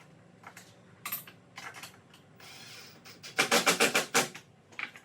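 Sharp metal-and-wood knocks and clicks from bolting legs onto a table saw: a few single clicks, then a rapid run of loud knocks a little past the halfway point.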